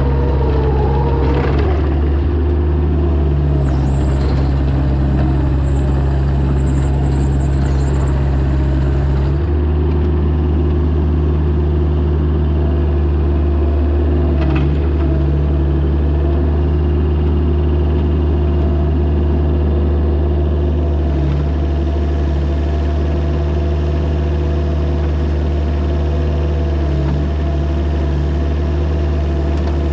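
Mini excavator's diesel engine running steadily, its note changing about nine seconds in.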